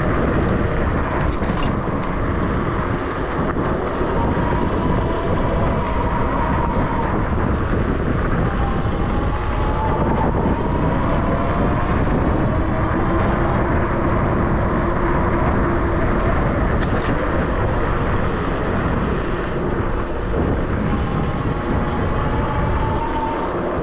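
ENGWE X24 e-bike riding off-road: steady wind buffeting on the microphone and tyre rumble over the trail, with a faint whine that slowly rises and falls in pitch.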